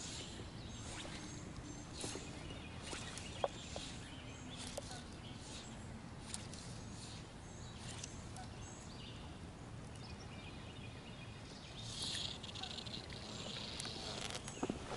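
Birds chirping and singing in repeated short high phrases, with a denser burst of song about twelve seconds in, over a steady low background rumble and an occasional sharp click.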